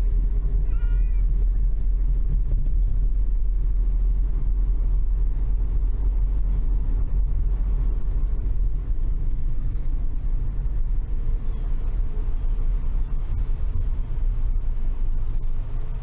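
An elderly grey domestic cat meows once, a short wavering call about a second in, over a steady low rumble.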